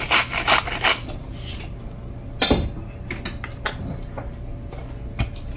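Kitchen utensils clinking against a bowl and dishes: a quick run of light clicks in the first second and a half, then a few separate knocks, the loudest about two and a half seconds in.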